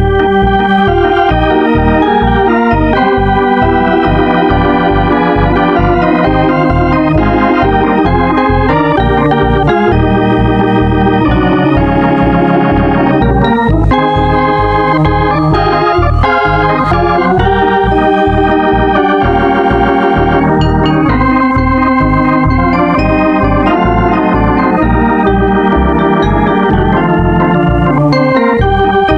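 Organ music playing continuously, chords shifting over a steady bass beat.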